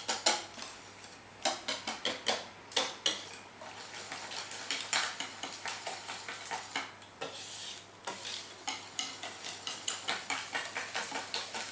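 Metal wire whisk beating crêpe batter in a bowl, the wires clicking and rattling against the bowl in quick strokes, with a few loud knocks in the first seconds and a faster, steadier rattle after. The batter is beaten hard to work out lumps of flour.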